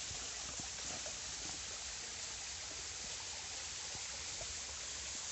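Waterfall running with a steady, even rush of water; its flow is fairly weak.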